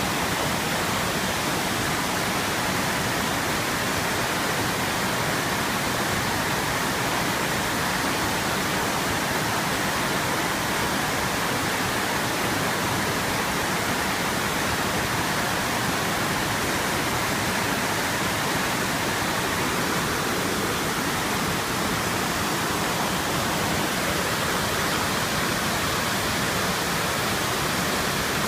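River water rushing steadily, an even hiss of flowing water with no change in level.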